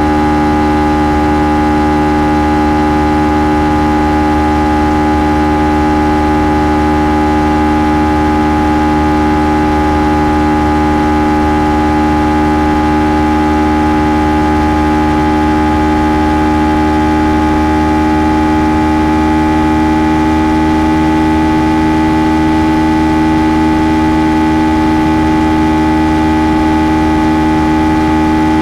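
Kawasaki Ninja 300's parallel-twin engine on its stock exhaust, running at a steady speed under way: a loud, even hum whose pitch creeps up slightly in the second half.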